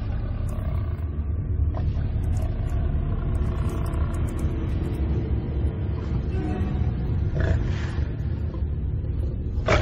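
Lions growling in a low, continuous rumble, with a sharper burst near the end.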